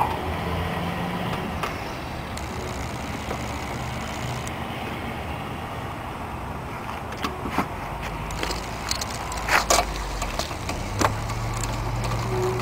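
Clicks and knocks of hand work on a car headlight's mounting bracket as its screws are set and driven back in with a screwdriver. The clicks are scattered through the second half, the loudest pair about ten seconds in, over a steady background rush.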